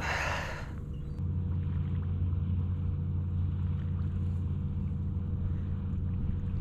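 Low steady hum of a boat engine running, growing stronger about a second in, with a brief rush of noise at the very start.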